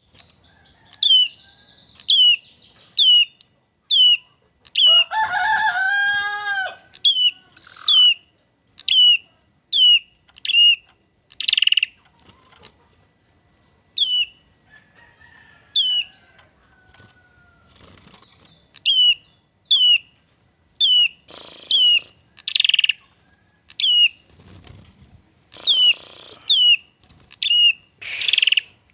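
A small ciblek (prinia) songbird repeats sharp, high whistled notes, each sliding steeply downward, mostly about one a second. A lower call with several tones rises and falls between about five and seven seconds in. Short noisy bursts come near the end.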